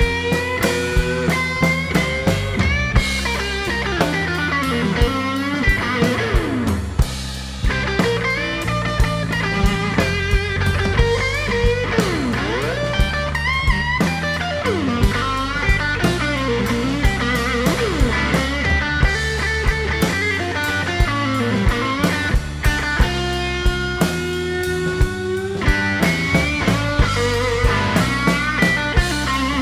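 Live blues band playing a slow blues instrumental passage: a Stratocaster-style electric guitar carries the lead with many bent, sliding notes over electric bass and a drum kit, with no vocals.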